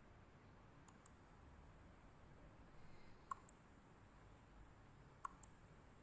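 Faint computer mouse clicks, three quick pairs spread over the stretch, over near-silent room tone.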